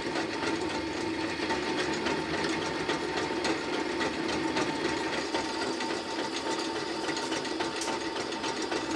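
Drill press running steadily while a twist bit bores a bolt hole through a steel angle bracket: an even motor hum with the cutting noise of the bit in the steel.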